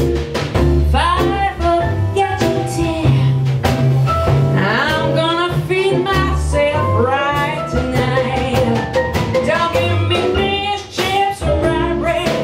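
Jazz band playing: bass and drums keeping time under a bending lead melody line, with guitar and piano in the mix.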